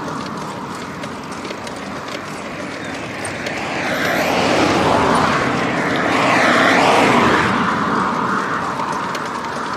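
Two cars pass in the opposite lane. Their tyre and engine noise swells from about a third of the way in, peaks twice and fades near the end, over a steady rush of wind on the microphone of a moving bicycle.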